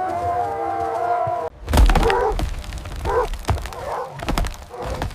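Several wolves howling together, cut off abruptly about a second and a half in by a series of loud, heavy thuds and knocks.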